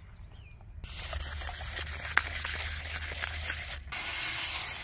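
Trigger spray bottle of diluted dish-soap water spraying onto a carbon-fibre foil wing: a hissing spray from about a second in, a brief break, then a second short spray near the end.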